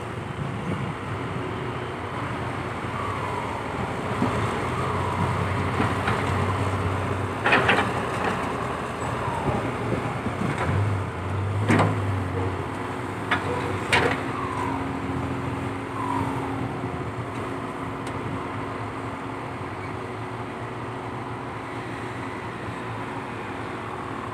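Komatsu PC120-5 hydraulic excavator working, its diesel engine running with the note swelling twice under load, with short falling squeaks and a few sharp knocks between about 7 and 14 seconds in.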